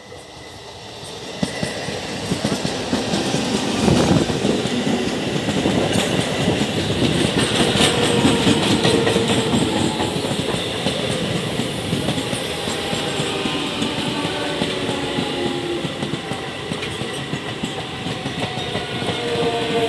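ICF Medha three-phase electric multiple unit local train approaching and passing close by at speed: wheels clattering over the rail joints. It grows quickly to full loudness about four seconds in and stays loud as the coaches go by.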